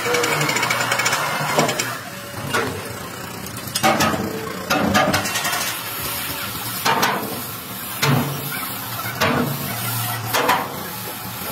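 Compressed-air paint spray gun hissing, with a sharp click or knock about once a second.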